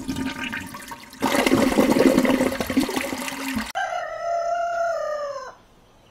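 A loud rushing noise with a steady low hum, cut off abruptly, then a rooster crowing once: one long call, falling slightly in pitch near its end.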